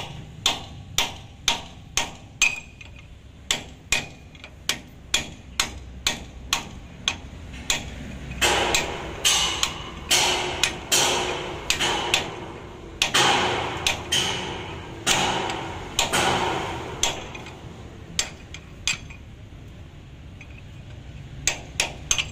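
Hammer blows on a steel drift held against a truck's wheel-hub nut, metal on metal. The strikes come about twice a second at first, then in faster runs with ringing through the middle, and a few last blows after a short pause near the end.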